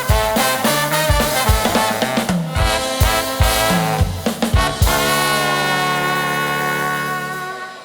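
Brass band with trumpets, trombone, saxophone and drum kit playing an upbeat tune, hitting a final chord about five seconds in and holding it until it fades out near the end.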